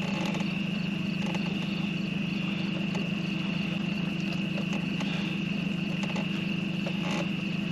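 Steady low drone of an idling boat motor, with a continuous high-pitched insect chorus over it.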